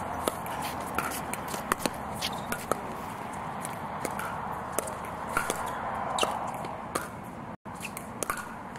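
Pickleball rally: paddles striking the hard plastic ball in a quick exchange, a sharp pop every half-second to second. The sound drops out for an instant near the end.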